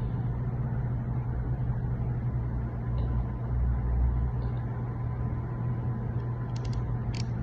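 Steady low hum, with a few small sharp clicks near the end as plastic parts of a hair clipper are pushed and snapped into place.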